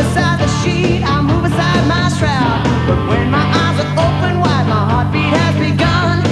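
Rock song played by a band with electric guitars and drums, with sliding, pitch-bending lead lines about two and five seconds in.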